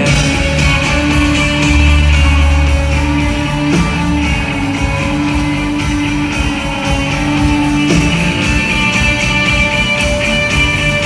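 Live rock band playing an instrumental stretch of a song: strummed acoustic guitar and electric guitar over bass, keyboards and drums, loud and heard from among the audience.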